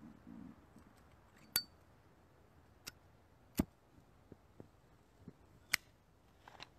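Sparse sharp clicks and light clinks, about half a dozen spread irregularly, two of them with a short metallic ring.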